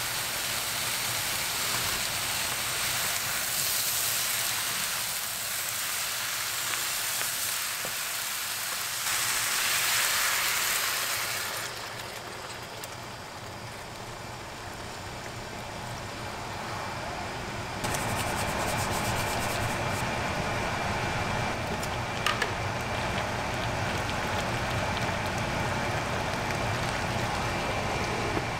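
Food sizzling in a hot pan, a steady hiss. It dips about halfway through, and from about two thirds in a low steady hum runs under it.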